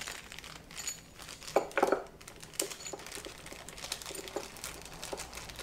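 Plastic parts bag crinkling and rustling as gloved hands unwrap the small pieces of a valve spring compressor tool, with light clicks and taps as the pieces are handled. The loudest rustles come a little under two seconds in.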